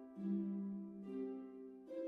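Slow instrumental background music: sustained pitched notes that change about once a second.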